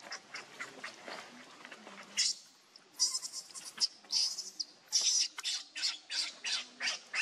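Baby macaque crying with short, high-pitched squeals, repeated two or three times a second from about two seconds in.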